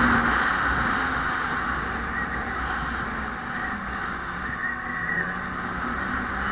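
Two-stroke snowmobile engine running at trail-riding speed, heard from the rider's seat with the hiss of the sled moving over snow. It eases a little through the middle.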